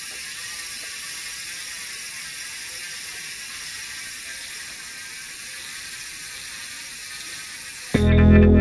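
Bicycle rear freehub buzzing steadily as the wheel spins freely, its pawls ratcheting too fast to hear as separate clicks. It cuts off suddenly near the end, where music comes in.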